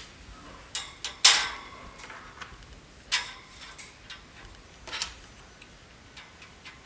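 Small plastic 3D-printed test models being set down on the metal wire shelf of a heating oven: about half a dozen sharp, irregular clicks and knocks, the loudest a little over a second in.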